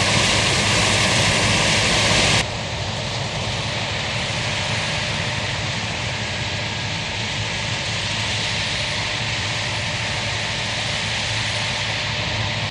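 Heavy harvest machinery running steadily: a low engine drone under a broad, loud hiss. The sound drops suddenly in level about two and a half seconds in, then carries on steadily.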